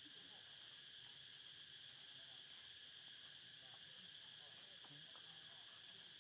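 Faint, steady high-pitched drone of insects in chorus, with faint voices underneath.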